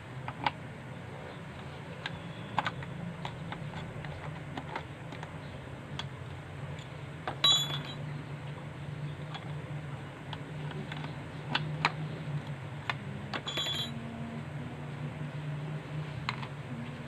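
Scattered clicks and clinks of metal hand tools and small screws as a size 10 wrench takes screws out of a Homelite chainsaw, with two louder ringing metallic clinks, one near the middle and one later. A steady low hum runs underneath.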